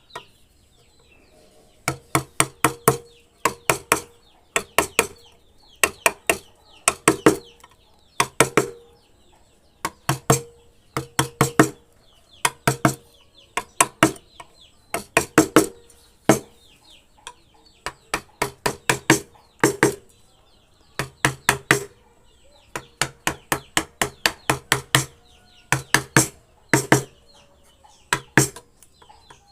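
Sharp knocks of a hand tool striking wood, coming in quick bursts of three to five blows, one burst about every second. Faint bird chirps and a steady high whine sit behind them.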